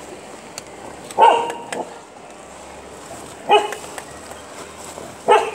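A dog barking three times, about two seconds apart.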